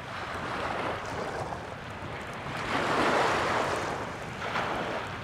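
Small sea waves lapping and breaking at the water's edge, the wash swelling and fading about three times, with some wind.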